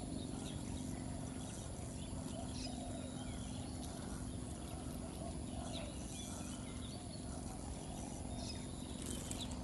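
Quiet open-air ambience: many short bird chirps and calls scattered over a steady low hum.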